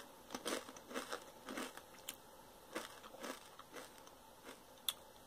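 Faint, irregular crunching of a Doritos tortilla chip being chewed with the mouth closed, the crunches thinning out toward the end.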